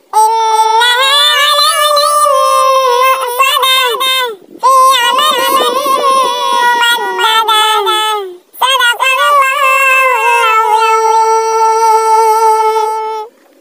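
A high-pitched solo voice chanting a Quran recitation (tilawat) in long ornamented phrases, the pitch wavering and sliding within each held line. It sings three phrases, with short breaks about four and eight and a half seconds in.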